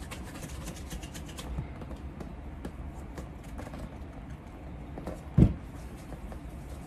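Faint scratchy ticks of hand-polishing a leather shoe, with a single dull low thump about five and a half seconds in.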